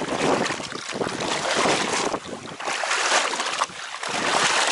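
Water sloshing and splashing around someone wading through shallow water to haul in a gill net, with wind rushing on the microphone. The noise surges and eases unevenly.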